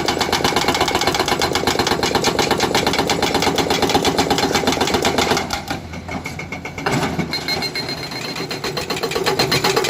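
Excavator-mounted hydraulic breaker hammering rock in rapid blows over the excavator's engine. The hammering stops about five and a half seconds in, then starts again a second and a half later and builds back up.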